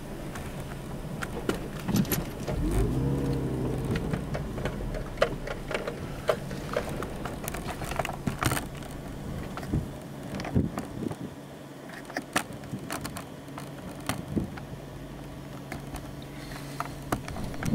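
Sound of the chase car with its engine running as a steady low hum, overlaid with scattered sharp clicks and knocks. A brief wavering tone rises and falls about three seconds in.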